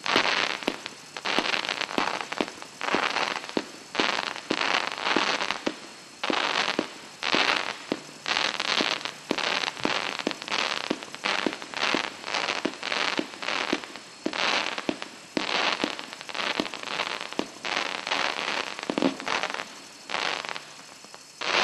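A 49-shot white strobe crossette fireworks cake firing its shots in steady succession, about two a second. Each shot is a sharp bang followed by a short burst of crackling as the stars split and strobe.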